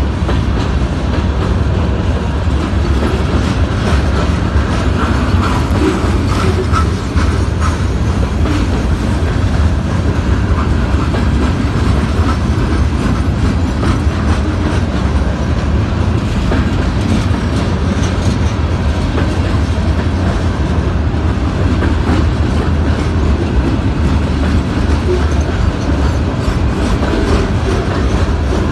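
CSX freight train's cars rolling past, steel wheels clacking over the rail joints over a steady, heavy rumble.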